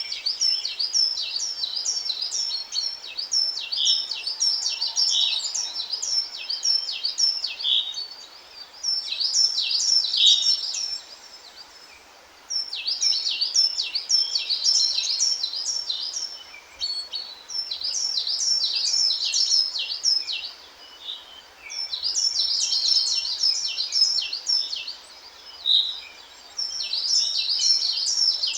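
Birdsong: rapid, high-pitched notes repeated in phrases a few seconds long, with short pauses between them, over a faint steady hiss.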